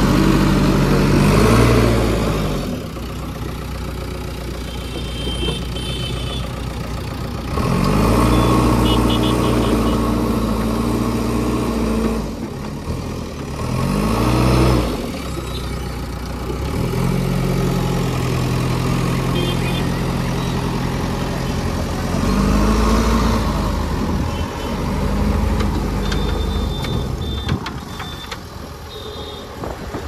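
JCB 3DX backhoe loader's diesel engine working under load as the machine drives into a sand pile, scoops and lifts its front bucket, its pitch rising and falling several times as it is revved. Short high beeps sound now and then over the engine.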